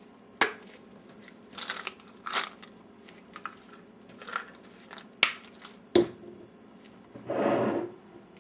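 Things being handled and knocked about on a kitchen counter: a scattered series of sharp knocks and clacks, then a crinkly rustle lasting about a second near the end.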